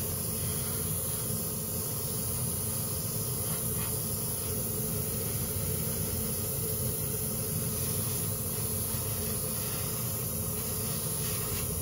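Steady hiss of an airbrush spraying clear coat, over a low steady hum.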